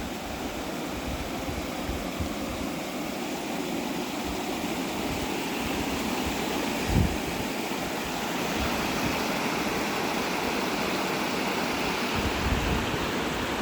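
Steady rushing water, growing a little louder about halfway through, with wind buffeting the microphone in low gusts.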